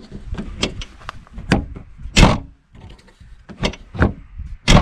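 Rear liftgate handle and latch of a 2000 Jeep Cherokee XJ being worked again and again: a series of about six sharp clicks and clunks, the loudest about two seconds in. The latch is working again after a repair.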